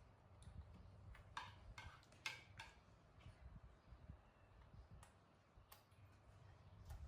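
Near silence with a few faint, sharp clicks or taps, several in quick succession between one and three seconds in and one more near the end, over a low rumble.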